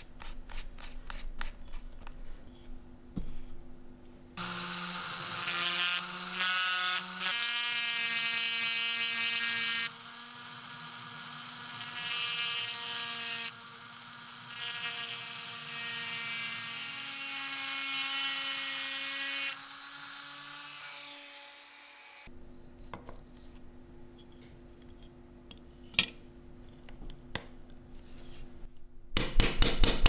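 Handheld rotary tool with a small ball burr running at high speed, grinding away the rusty rivet that holds the flint wheel on a Zippo lighter insert. It gives a steady whine whose pitch steps up and down as the speed and pressure change, and it stops sharply. Light clicks come before it, and scattered clicks and a short run of knocks come after it.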